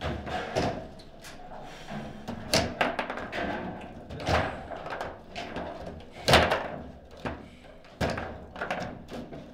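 Table football rally: irregular sharp knocks and clacks as the player figures strike the ball and the rods bang in the table. The hardest hit comes about six seconds in.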